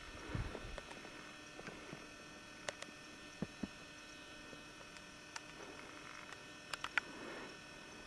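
Faint steady electrical hum from the recording equipment, with a few scattered sharp clicks and a soft low thump about half a second in.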